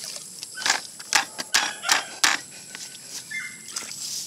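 A plastic colander of wet, freshly scooped azolla being shaken and tipped out, giving about five short, sharp bursts of noise in quick succession in the first half.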